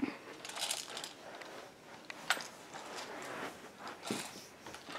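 Faint handling noise: scattered light rustles and clicks as things are moved about, with one sharper click about two seconds in.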